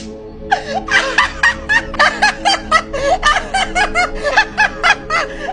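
A person laughing in a fast run of repeated bursts, about four a second, starting about half a second in, over background music with steady held tones.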